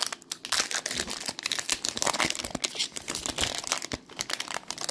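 Foil wrapper of a Pokémon trading-card booster pack crinkling and tearing as it is pulled open by hand: a dense run of sharp crackles.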